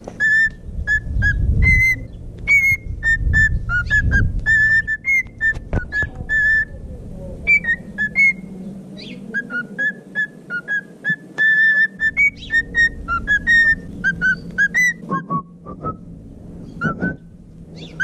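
Male cockatiel singing: long runs of short, high whistled notes, most on one pitch, with some sliding up or down, repeated quickly one after another.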